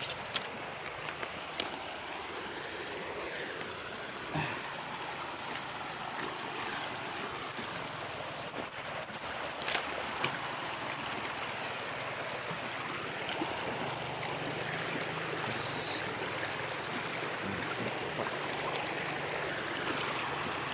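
Shallow stream flowing over rocks, a steady rushing burble of water, with a brief louder rush about three-quarters of the way through.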